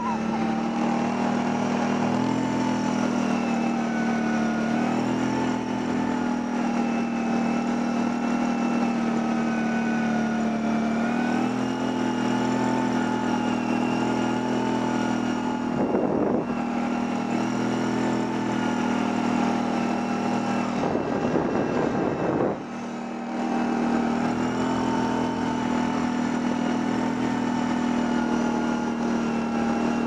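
Kawasaki Brute Force 750 ATV's V-twin engine running steadily while riding a snowy trail, with small changes in pitch as the throttle varies. The sound dips briefly about two-thirds of the way in, then picks back up.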